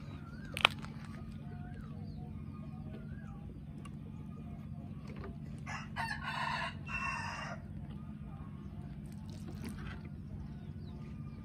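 A rooster crowing once, a call of under two seconds in two parts about halfway through, over a steady low hum. A sharp click comes about half a second in.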